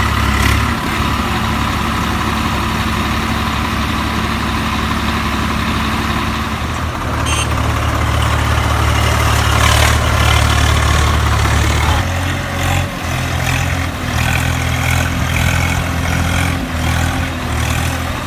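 Tractor engine running, louder for several seconds about a third of the way in, then uneven in the last third.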